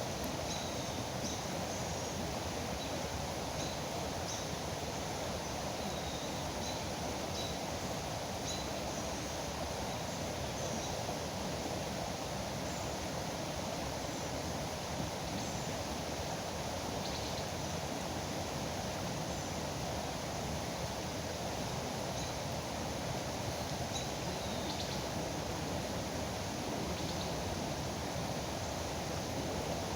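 Steady rush of flowing river water, with small birds giving short high chirps now and then throughout.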